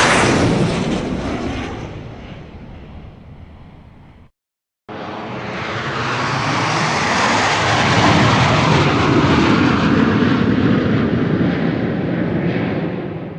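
Airplane engine sound effects: a loud pass-by fades away over the first few seconds and cuts off. After a brief silence a second airplane engine noise starts abruptly, builds, then holds steady.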